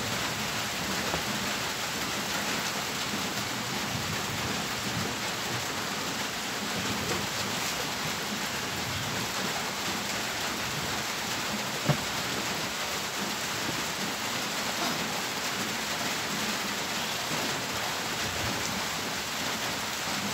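Steady rain falling, an even hiss without any pitch, with one sharp click about twelve seconds in.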